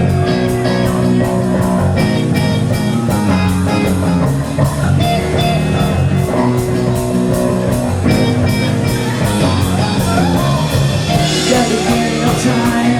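Live rock band playing a song: electric guitar and bass over a steady drum beat.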